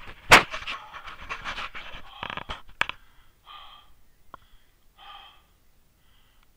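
Rustling through tall grass with a couple of loud knocks at the start, then a hiker breathing hard, two heavy breaths in the second half, winded from the hill climb.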